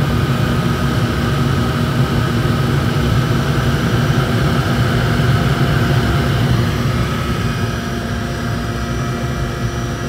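Forced-air, pressure-fed burner firing a tilting hearth furnace: a steady roar with a low rumble and faint blower hum, easing slightly about seven seconds in.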